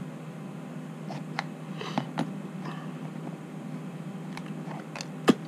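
A small cardboard box being handled and pried open, with scattered light taps and clicks, the sharpest about five seconds in, over a steady low hum.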